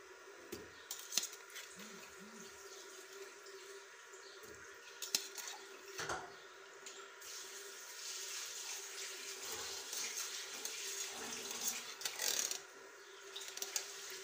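Canned pineapple pieces forked from a metal tin into a plastic blender jar: scattered clicks of the fork against the tin and jar, then in the second half about four seconds of liquid pouring and splashing into the jar.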